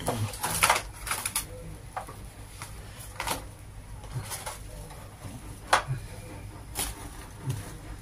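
Wire bird cage rattling in a handful of sharp, irregular knocks and clicks as an arm reaches in through the door and catches a woodpecker.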